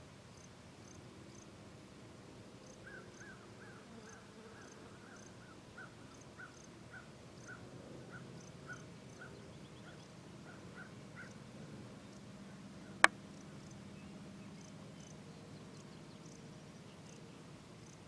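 Evening outdoor wildlife ambience. A run of short chirping calls, about two a second, stops about eleven seconds in, over faint high ticking and a low steady hum. One sharp click comes about two-thirds of the way through.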